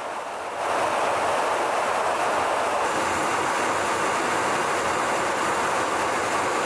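Steady rushing noise of jet aircraft in flight, engine and airflow together. It steps up in loudness about half a second in and takes on a brighter hiss about three seconds in.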